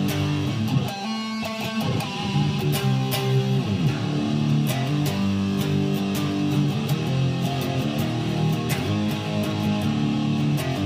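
Guitar music: strummed chords held and changing, with sharp strum attacks throughout.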